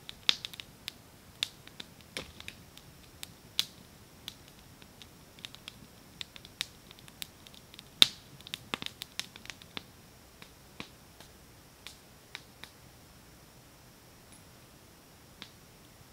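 Wood campfire crackling and popping: irregular sharp pops, thickest over the first ten seconds with the loudest about eight seconds in, then only a few scattered pops.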